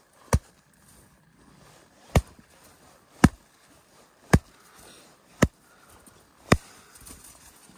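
Six sharp taps on an avalanche shovel blade laid flat on top of an isolated snow column, about a second apart. This is a compression test, loading the column step by step to see whether a weak layer in the snowpack fractures.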